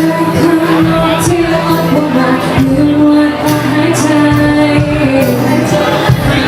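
Live band playing a Thai pop song, a singer holding a slow melody line that bends gently between notes, over bass and drums with cymbal hits about once a second.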